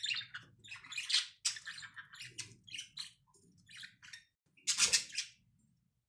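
Budgerigars giving a rapid string of short, harsh chirps and squawks. The loudest call comes about five seconds in, and then the calling stops.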